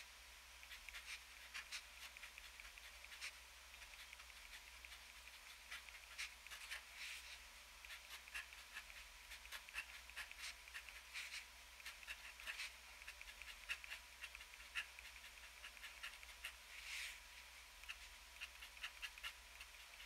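TWSBI ECO fountain pen with an extra-fine nib scratching faintly across paper while writing by hand: many quick, irregular nib strokes and taps, with a few longer strokes drawn out.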